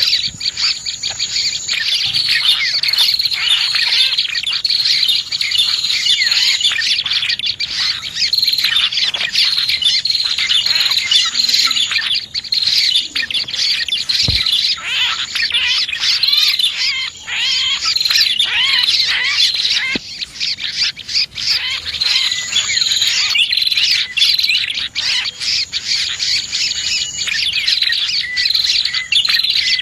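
Dense, unbroken chorus of small songbird chirps and twitters: a bird-lure recording of prinias (prenjak) calling, mixed with other small birds. Many quick, high calls overlap.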